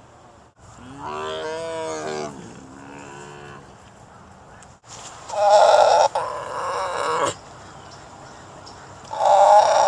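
Tiger calling: a drawn-out moaning call about a second in and a fainter one after it, then two loud roars, one about five seconds in and another starting near the end.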